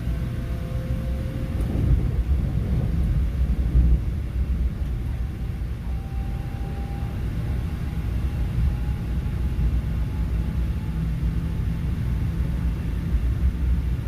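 Electric airport express train running at speed, heard from inside the carriage: a steady low rumble with a faint whine that slowly rises in pitch.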